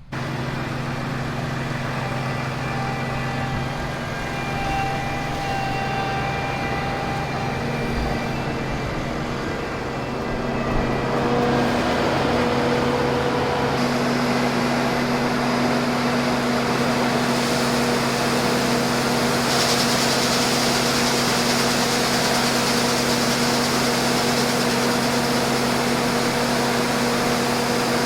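International 1460 combine running steadily, its engine and machinery making a constant drone with a steady whine. It grows louder about eleven seconds in, and a high hiss rises about twenty seconds in.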